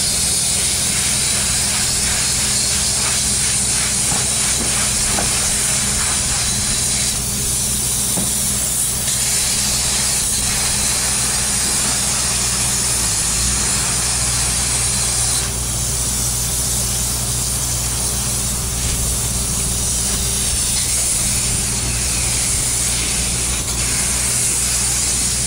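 Spray polyurethane foam gun hissing steadily as foam is sprayed, with a low steady hum of machinery underneath. The hiss drops briefly a couple of times as the spraying pauses.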